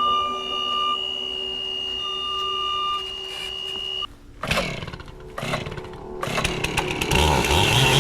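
Steady electronic tones, one of them beeping on and off, for about four seconds. Then, after a sudden break, a gas chainsaw revs with its pitch gliding and settles into running.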